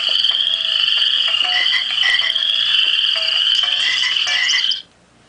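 Mobile phone ringtone playing: a loud, high, steady electronic tone with short lower notes over it, cutting off suddenly near the end.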